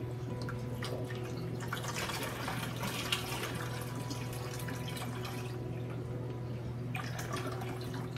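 Water pouring and trickling out of a plastic fish shipping bag through a mesh fish net into a plastic bucket, with the bag's plastic crinkling. The splashing is strongest through the middle and comes again briefly near the end.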